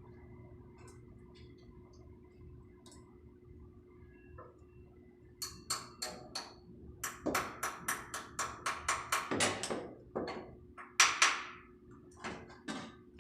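A quick run of sharp knocks and clinks, about two or three a second, starting about five seconds in, over a steady low hum.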